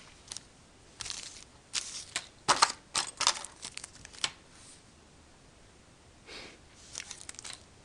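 Crinkling and rustling of small packets and parts being handled, in short irregular bursts with a few light clicks, falling quiet for about two seconds in the middle.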